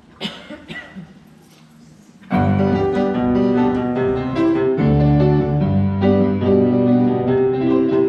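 A few faint knocks, then about two seconds in a grand piano starts playing chords and a melody, notes held and overlapping.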